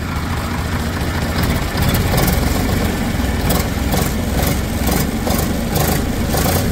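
HMT 4511 tractor's diesel engine running just after starting, picking up a little about two seconds in, with a regular high clatter about three times a second over the steady engine note.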